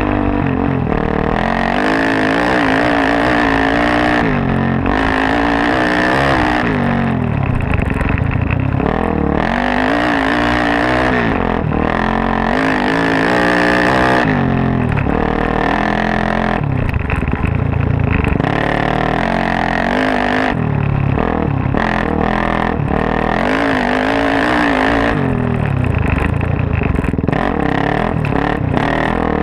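Suzuki DR-Z400S single-cylinder four-stroke dirt bike engine, big-bored to 440 and breathing through a full Yoshimura off-road exhaust, revving hard and dropping back again and again as it is ridden through the gears, with scattered short knocks.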